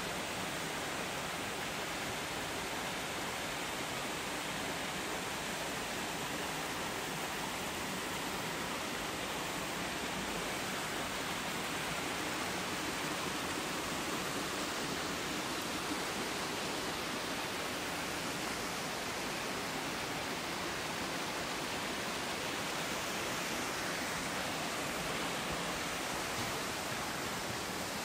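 Tenga Falls, a 40-metre waterfall, pouring down as a steady, even rushing of water.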